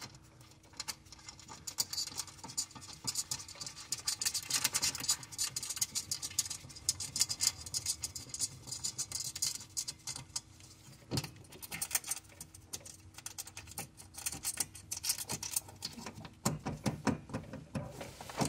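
Rapid small metallic clicks and rattles as a bolt and nut are worked on a car's throttle pedal bracket, coming in irregular clusters that are loudest around four to five seconds in and near the end.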